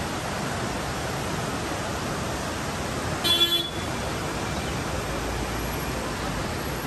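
Steady road and wind noise of a moving car, with one short vehicle horn honk about three seconds in.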